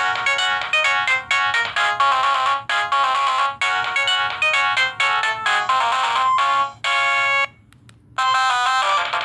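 LG SD2130 phone playing a ringtone: a quick electronic melody of short notes. It stops about seven and a half seconds in, and after a brief gap the next ringtone starts with short repeated notes.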